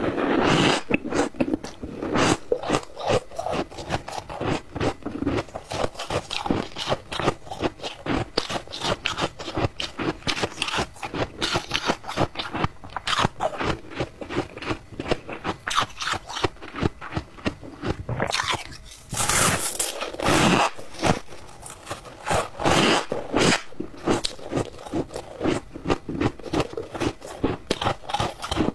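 Close-miked chewing and crunching of squeaky ice, a dense run of rapid crunches and squeaks, with a few louder bites about two-thirds of the way through.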